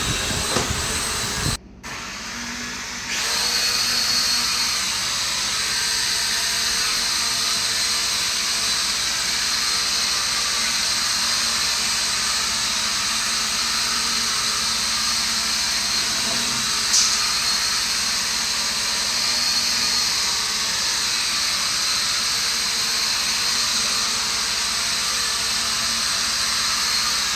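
E88 toy quadcopter's four small electric motors and propellers whirring steadily as it hovers, a high buzzing hiss over a low hum. It dips briefly near two seconds in, then settles louder and even from about three seconds.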